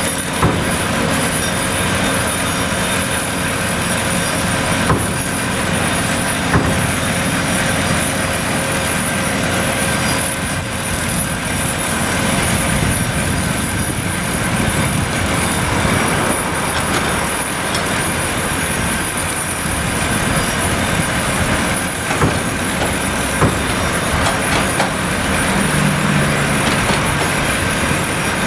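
Daewoo 255 LC-V excavator's diesel engine and hydraulics working steadily under load as it digs soil and swings to load a dump truck, with a few sharp clanks from the bucket and linkage along the way.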